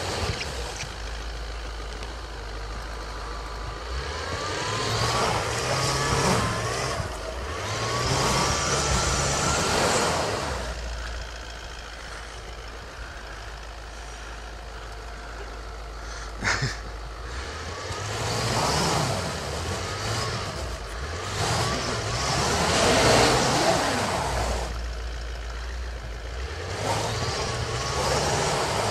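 Toyota Land Cruiser 200 stuck in snow and mud, its engine revving up and down in several long surges while the wheels spin without grip, churning the snow. A single sharp knock about halfway through.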